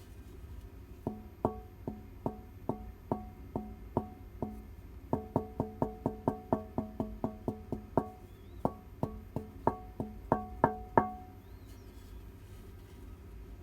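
A 100% carbon fibre part tapped again and again, each knock ringing briefly with a clear, hollow, woodblock-like tone. About thirty taps, a couple a second at first, quickening to about five a second in the middle, then slowing again before they stop.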